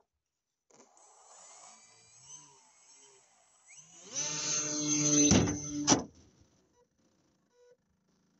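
A small electric motor, apparently the RC airplane's, whirs up for about two seconds with a steady hum, with two sharp knocks near the end before it cuts off. Before it there is a faint, wavering whine.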